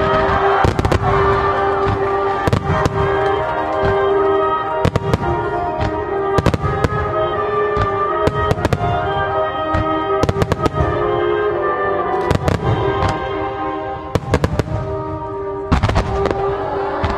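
Aerial fireworks shells bursting one after another, sharp bangs coming irregularly about every second, over music with long held notes.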